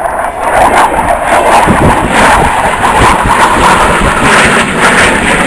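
Fighter jet's engine noise during a display pass: a loud, crackling rush that builds over the first second and then holds.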